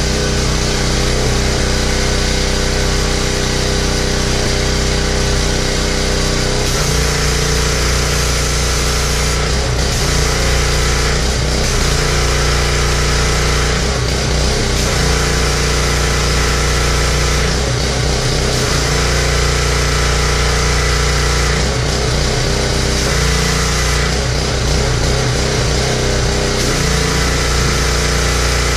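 Honda gas pressure washer's small single-cylinder engine running steadily, its note shifting back and forth every couple of seconds.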